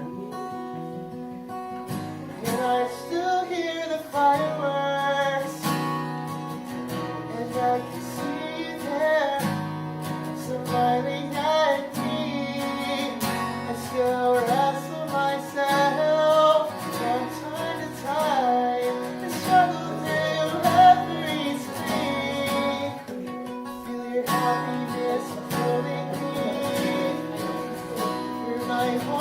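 Acoustic guitar playing chords, with a gliding melody line over it from about two seconds in. Near the end the melody breaks off briefly and the guitar carries on.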